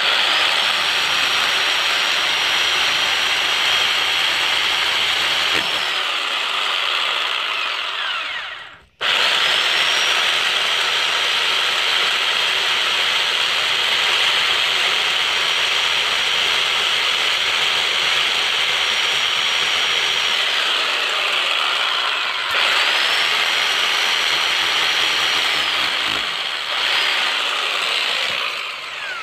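Heavy hammer drill with a masonry bit boring into brick, its motor whine and hammering running continuously. The motor eases off a few times, stops briefly about a third of the way through and starts again, and winds down near the end.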